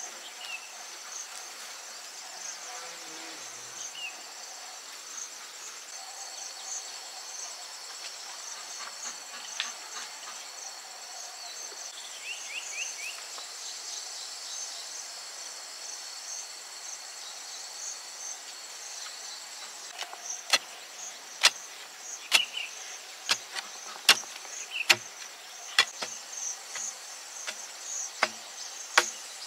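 Insects chirping steadily in a high, pulsing chorus. About two-thirds of the way in, a run of sharp knocks starts, roughly one a second, and these are the loudest sounds.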